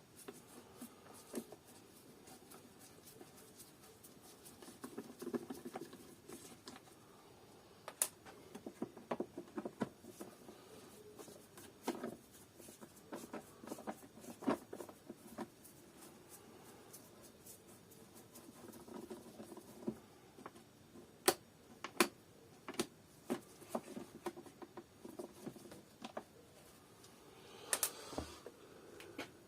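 Vacuum cleaner parts being handled and worked apart by hand: scattered light clicks, taps and scraping, with a few sharper clicks and a longer scrape near the end.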